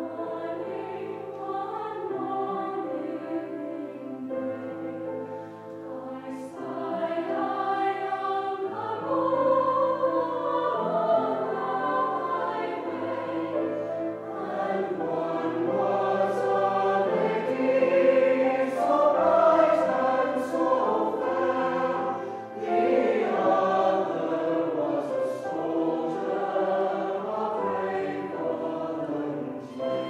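Mixed-voice choir singing a choral piece in parts, with sustained chords that shift from note to note. The singing grows louder from about a third of the way in and is loudest around the middle.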